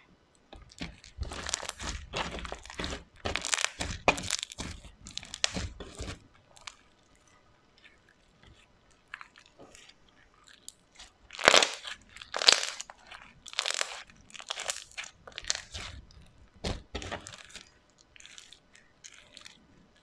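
Crunchy slime full of add-ons being squeezed and pressed by hand, giving irregular runs of crackling crunches. The crunching comes in two main bouts and grows fainter near the end.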